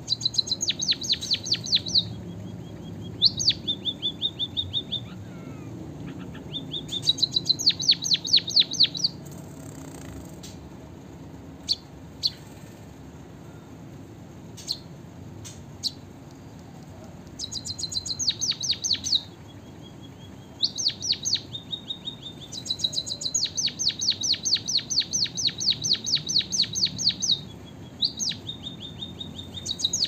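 A white-headed munia sings its chattering song, which has been tutored with canary phrases. It comes in repeated bouts of fast, high trilled notes, each a few seconds long, with short pauses and the odd single tick between them.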